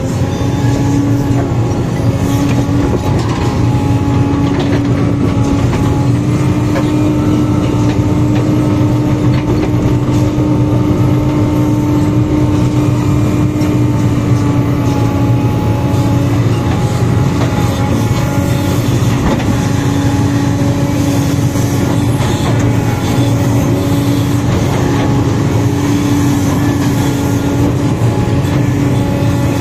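Sumitomo 490 excavator's diesel engine running steadily while it digs, heard from inside the cab as a loud, constant drone holding one pitch.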